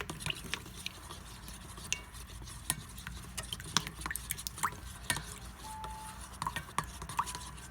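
A utensil stirring a runny, not-yet-binding mix of white glue and water in a bowl, with irregular clicks, taps and scrapes against the bowl.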